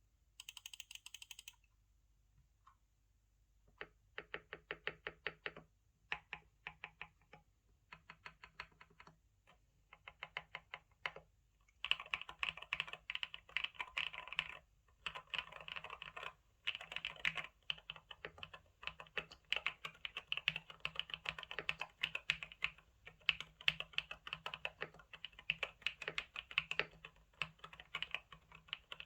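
Typing on a GMK67 custom mechanical keyboard with Akko V3 Cream Yellow Pro linear switches. After a brief clatter at the start, short runs of keystrokes with pauses between them give way, about twelve seconds in, to steady fast typing.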